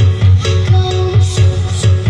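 Electronic dance music played loud through a large mobile carnival sound system during a sound check, with a heavy, evenly pulsing bass beat and a short repeating melody above it.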